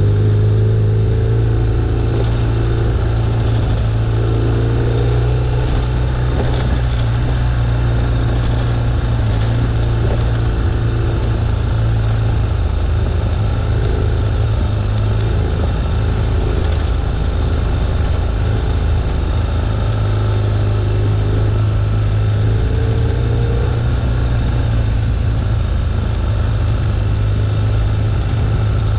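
2011 BMW R1200GS's flat-twin boxer engine running steadily at an easy riding pace, as picked up by a windshield-mounted GoPro, with a couple of brief small rises in pitch as the throttle is opened.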